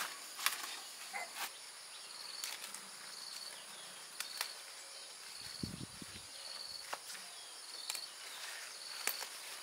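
Insects chirping outdoors in short, repeated high notes over a steady background hiss, with scattered sharp clicks and a brief low rumble about six seconds in.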